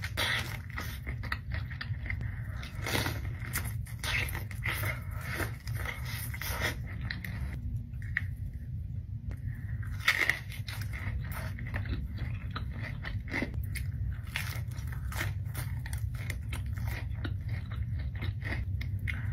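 Close-miked mukbang eating: crunchy bites and chewing of crispy fried food, a dense run of irregular crackles and crunches with a louder bite about ten seconds in, over a steady low hum.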